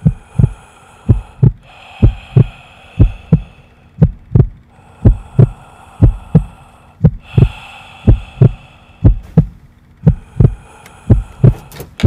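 Heartbeat sound effect: steady, evenly spaced deep double thumps, lub-dub, with thin high eerie tones that fade in and out between the beats.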